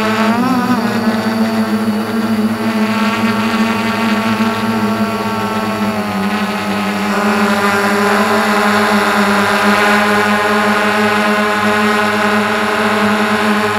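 Small multirotor drone's electric motors and propellers droning steadily, heard close up from the onboard camera. The pitch wobbles briefly about half a second in and shifts slightly a few seconds later as the throttle changes.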